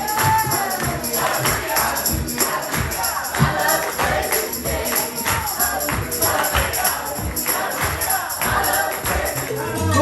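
Music: a group of voices singing in a gospel-like style over a band with a steady beat and bright jingling percussion.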